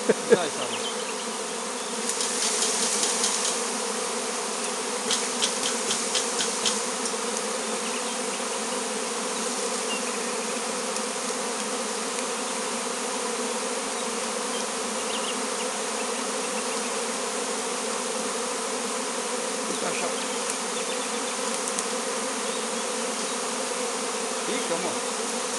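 Honeybee swarm buzzing, a steady dense hum of many bees in flight around the cluster as it is taken into a straw skep. About two seconds in and again around five to seven seconds in come short spells of rustling and crackling as the branch holding the swarm is handled.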